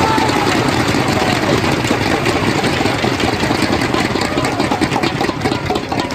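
Crowd of spectators cheering and clapping loudly after a point, with a few shouts at the start; the applause eases off near the end.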